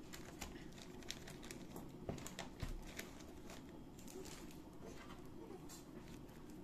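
Paper cupcake liner crinkling faintly as a brownie in it is picked up and handled, with scattered light ticks and rustles throughout.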